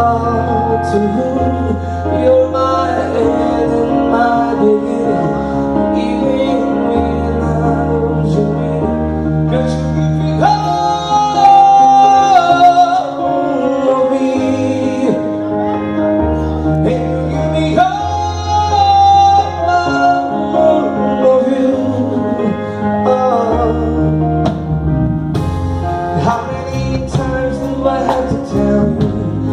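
A man singing a ballad over instrumental accompaniment with sustained bass notes, holding long notes with vibrato, the loudest about ten seconds in.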